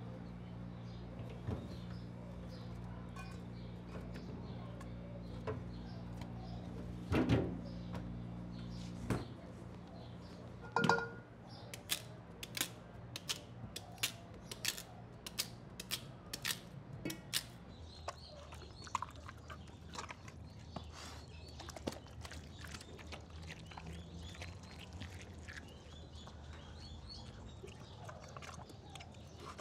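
Kitchen work over a steady low electric hum: two heavy clanks of a metal pot, the second ringing briefly. Then a quick run of about a dozen sharp knife chops, roughly two a second. Softer scattered clicks follow over a low rumble.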